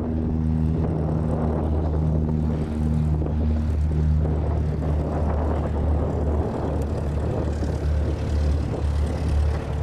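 A light aircraft's piston engine and propeller running with a steady drone; a higher tone in it fades out about four seconds in.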